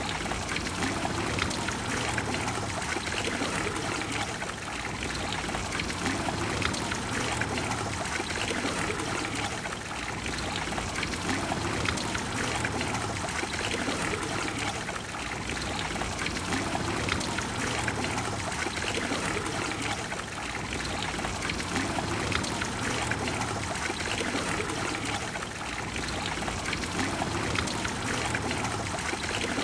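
Trevi Fountain water falling and splashing into its basin in a steady, continuous rush, swelling gently every few seconds.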